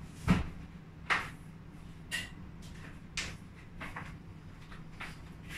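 Sharp knocks and clinks of kitchen items being handled and set down, about one a second. The loudest is a dull thump about a third of a second in, and one clink about two seconds in rings briefly.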